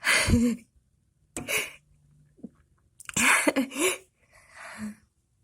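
Four breathy vocal bursts, sharp gasps and half-voiced exclamations, from a person close to the microphone.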